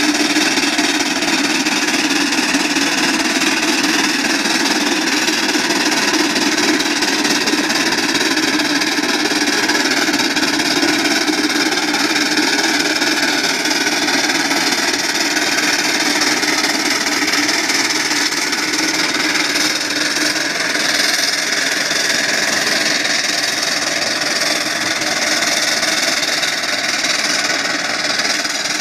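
1907 18-horsepower Avery undermounted steam traction engine working under load as it pulls a plow, with a steady, continuous mechanical clatter and chuff.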